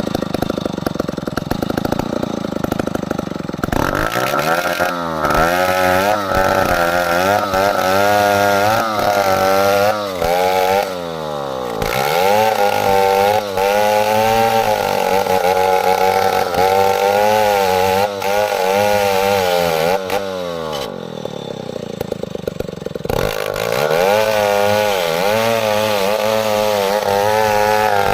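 Two-stroke chainsaw engine running hard under load, its pitch wavering constantly and dipping briefly several times as the revs ease off and come back, with a softer stretch about two-thirds of the way through before it is run up again.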